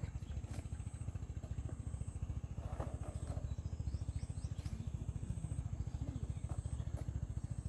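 A small engine running steadily nearby with an even low throb, and a few faint clicks and rustles as bundles of long beans are handled.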